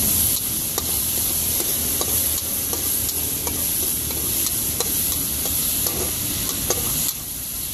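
Metal spatula scraping and clinking against a large metal wok as seafood and vegetables are stir-fried, with a steady sizzle throughout. The sizzle eases slightly about seven seconds in.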